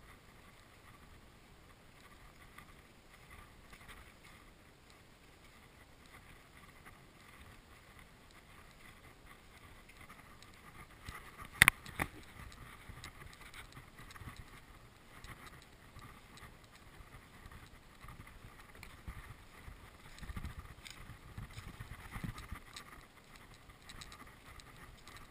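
Faint, steady outdoor background hiss with a single sharp click about halfway through and a few low bumps near the end.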